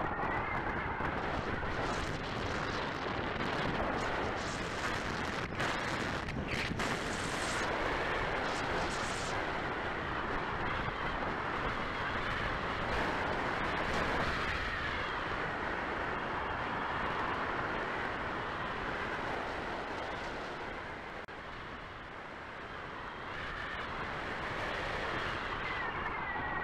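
Air rushing past an onboard camera's microphone on a radio-controlled scale glider in flight, a steady windy hiss with a faint wavering whistle. It has a few brief clicks about six seconds in and eases off for a few seconds past the twenty-second mark before building again.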